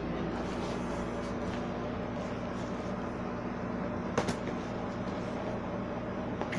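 Steady machine hum with a few constant tones, like an appliance or fan running, and a single sharp click about four seconds in.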